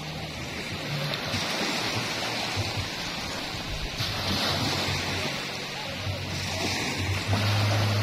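Small sea waves breaking and washing up a sand beach, with the steady hiss of foam running over the sand. A low steady hum underlies it and grows louder near the end.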